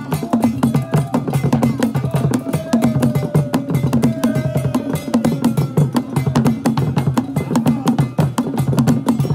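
Percussion-heavy music: a fast, steady pattern of drum strokes with a gliding melodic line above it.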